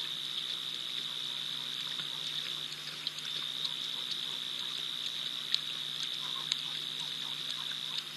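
Night chorus of calling insects or frogs: one steady high-pitched trill. Over it come scattered soft clicks and wet lapping from lions drinking at the water's edge.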